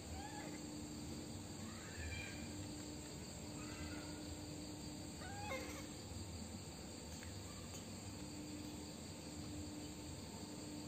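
Steady chirring of night insects such as crickets with a low hum under it, and four or five faint short squeaks, each a quick pitch glide, in the first half.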